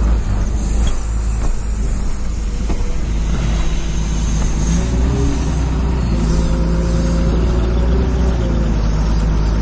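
Engine of a rough-terrain forklift running steadily close by as it carries a bundle of lumber over the truck's flatbed. A deep rumble sits under it, and the engine note shifts a little about halfway through as the load is worked into place.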